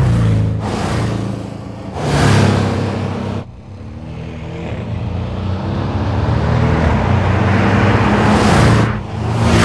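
Porsche 718 Boxster GTS's turbocharged flat-four engine accelerating and passing, in several short passes cut together, the revs climbing within each pass and the sound swelling as the car comes close.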